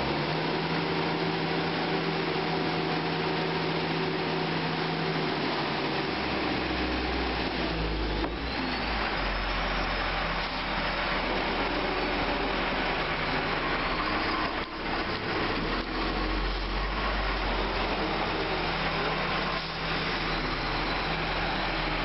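Case IH articulated four-wheel-drive tractor's diesel engine running under load as it drags an uprooted tree stump, a loud steady rumble whose deep low end swells and eases a few times.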